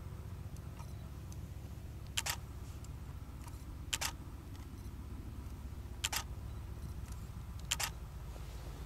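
Camera shutter clicking four times, about two seconds apart, each a quick double click, over a steady low rumble.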